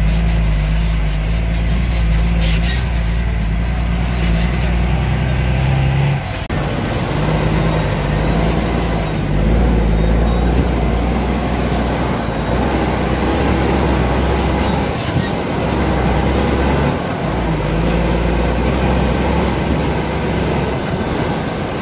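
Heavy truck's diesel engine running steadily, heard from the cab next to its vertical exhaust stack as the truck drives through mud and standing water. The sound changes abruptly about six seconds in.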